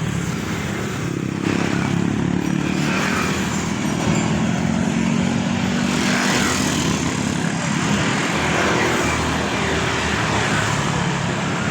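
Motor vehicle engines running steadily, street traffic noise with a low engine hum throughout.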